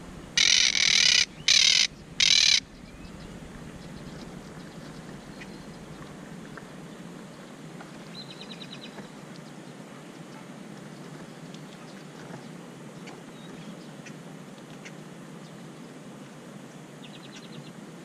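Monk parakeet giving three loud, harsh squawks in quick succession, the first the longest. After them only a steady background hiss, with two short runs of faint rapid ticking.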